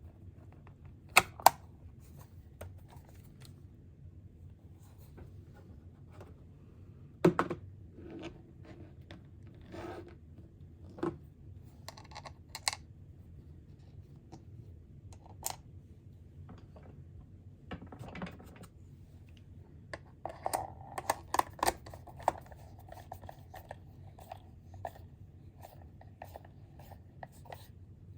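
Plastic housing parts of a Philips/Norelco HS550 electric shaver being handled and fitted together: scattered clicks, taps and light rubbing, with a quick run of clicks about 20 seconds in.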